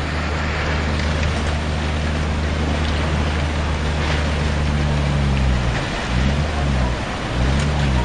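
Tsunami floodwater rushing and churning in a continuous loud roar of water, with a low steady drone underneath that wavers up and down in pitch near the end.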